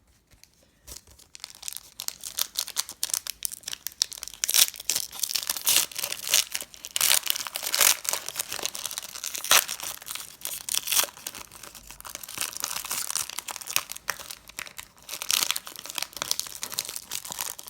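Pokémon booster pack wrapper being crinkled and torn open by hand, with dense, irregular crackling that starts about a second in and keeps going.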